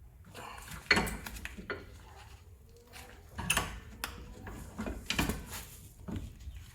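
Metal tools clinking and knocking in a string of separate sharp strikes while the brake caliper's piston is being pushed back into its bore to clear a thicker new rotor.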